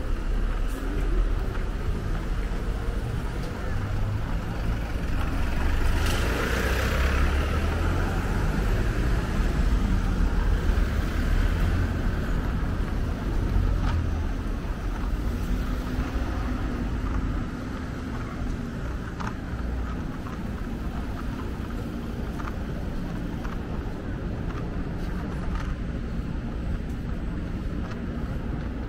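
Low rumble of a passing vehicle, swelling about six seconds in and dying down to a quieter steady city hum a little past halfway.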